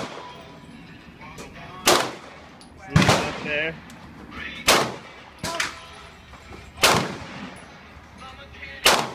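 Browning .22 LR rifle being fired, a string of sharp single shots about one to two seconds apart, five loud ones in all.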